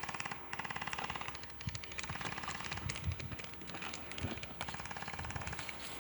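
Airsoft guns firing on full auto: several short bursts of rapid, evenly spaced clicks, one after another.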